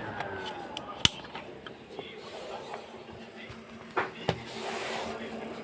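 Electric fan motors: a whine falling in pitch as a fan winds down, over a steady hum, with a sharp click about a second in and two more knocks near four seconds, followed by a short rush of air.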